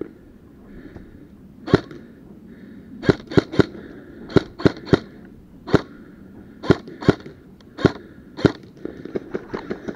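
Airsoft guns firing single shots: about a dozen sharp cracks at irregular intervals, some in quick runs of two or three, with fainter clicks near the end.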